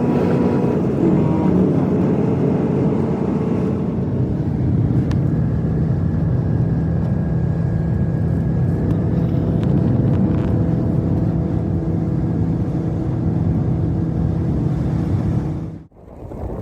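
Steady engine and road noise of a vehicle driving, a continuous low hum with a few steady tones, cutting off suddenly near the end.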